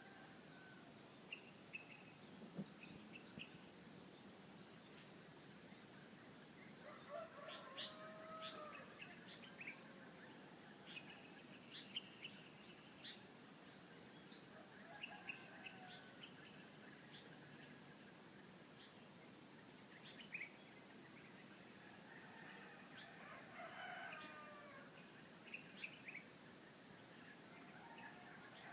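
Roosters crowing faintly, about twice (a little under a third of the way in and again past the three-quarter mark), among scattered short chirps of small songbirds. A steady high-pitched drone runs underneath.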